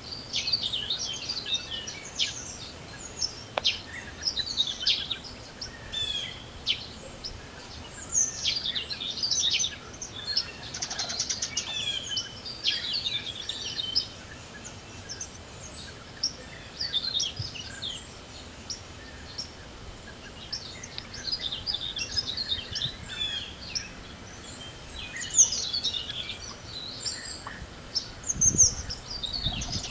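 Several songbirds singing and calling in spring, overlapping chirps and trills throughout, over a steady hiss of wind.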